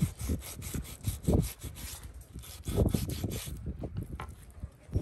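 A cleaver cutting raw pork belly on a wooden chopping block: quick repeated rasping strokes of the blade through the fat and skin, with a few dull knocks against the wood. It eases off in the last second or so.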